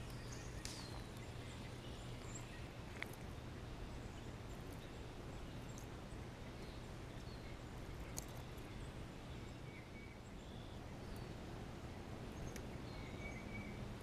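Steady outdoor background hum with faint, scattered bird chirps and a few sharp clicks.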